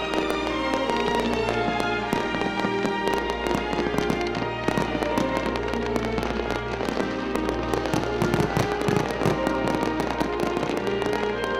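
Fireworks going off in quick succession, a dense run of bangs and crackles that thickens partway through, heard over steady background music.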